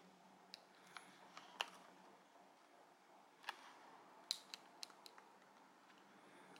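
Small scissors snipping through the thin clear plastic wrap around a pair of AAA batteries: a scattered series of faint, short snips at irregular intervals.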